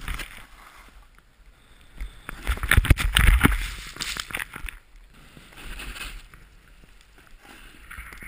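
Snowboard hissing and scraping through powder snow, with wind rushing over a helmet-mounted camera. About two seconds in it swells into a loud rush of snow and knocks lasting a couple of seconds, as the rider goes down and tumbles in the snow.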